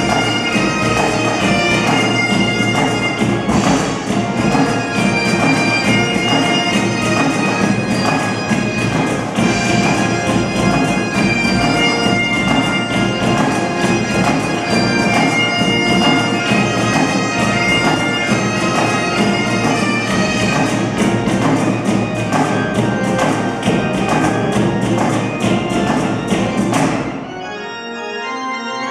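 Great Highland bagpipes playing a tune with pipe-band snare and bass drums and a pipe organ. About 27 seconds in the pipes and drums stop, leaving the pipe organ sounding alone.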